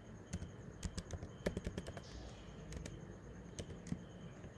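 Typing on a computer keyboard: a scattering of light, irregular keystroke clicks.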